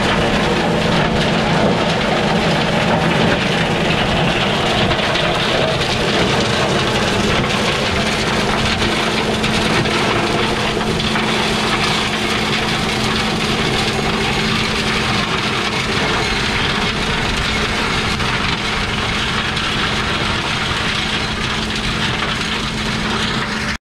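Tractor engine running a PTO-driven flail mower as it shreds pruned orchard brush into mulch: a steady engine and rotor hum under a constant crackle and clatter of branches being chopped. The sound grows slowly fainter as the tractor moves off, and the hum fades out about two-thirds of the way through.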